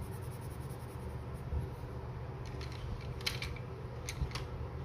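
A Deli watercolour pencil scratching and clicking lightly against a paper test sheet in a few short strokes, mostly from about halfway through, over a steady low hum.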